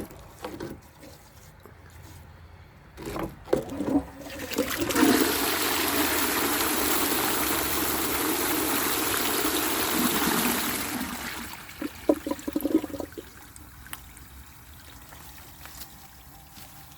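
1931 Maples Foundry "Burlington" cast-iron pull-chain cistern being flushed: a couple of clanks from the chain-pull mechanism, then water rushing down through the siphon for about six seconds and tailing off, with a few more clanks as it settles.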